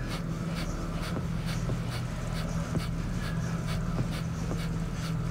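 Kapalabhati breathing: short, forceful puffs of breath out through the nose at about four a second, each exhale driven by a pump of the belly. A steady low hum runs underneath.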